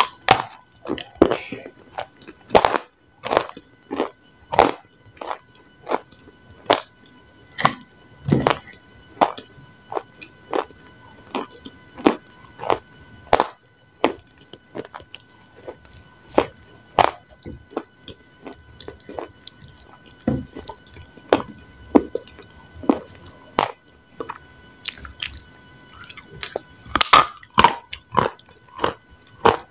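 Close-miked bites and crunchy chewing of dry, chalky grey lumps coated in powder. Sharp crunches come about every half second to second, with a quicker run of them near the end.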